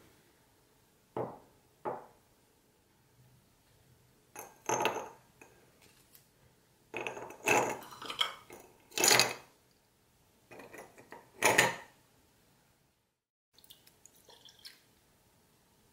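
A glass tumbler knocked down twice on a wooden table, then ice cubes dropped into it with several loud, sharp clinks. Near the end comes a soft pour of vodka over the ice.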